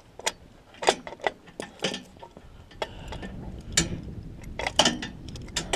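Irregular sharp metallic clicks and clinks of rigging hardware being handled, about ten in all, with a low rumble rising about three seconds in.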